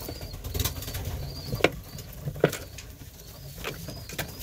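Racing pigeons in a breeding loft, with a few short sharp slaps, the two loudest about a second and a half and two and a half seconds in.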